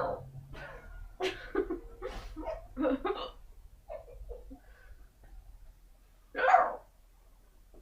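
A woman's strange hiccups: several short ones in quick succession over the first few seconds, a couple of faint ones, then a single loud hiccup near the end.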